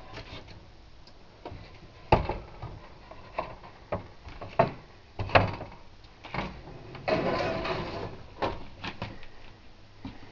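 Irregular hollow knocks and thumps of someone stepping through a caravan's interior. They come about half a second apart in the middle, with a longer scraping noise about seven seconds in.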